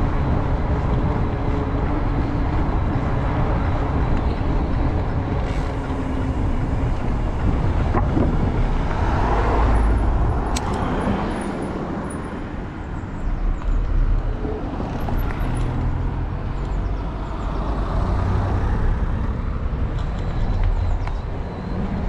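Steady low rumble of wind buffeting a helmet- or bike-mounted action camera's microphone while a mountain bike is ridden along, with tyre noise from the trail underneath.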